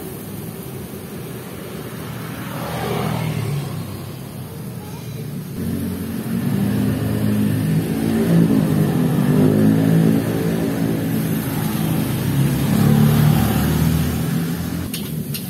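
Road traffic: engines of passing vehicles rumbling, swelling and fading, loudest around the middle and again near the end.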